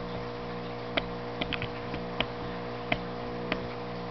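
A steady electrical or mechanical hum with a slow, even pulse, broken by about seven short, sharp ticks at irregular intervals, the loudest about a second in and near two seconds in.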